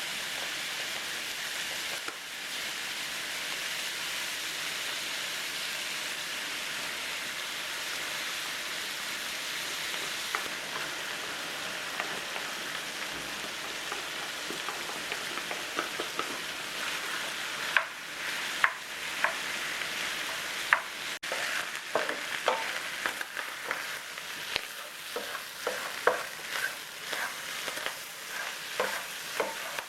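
Food sizzling in a hot pan, a steady hiss, with utensil taps and scrapes that grow more frequent in the second half.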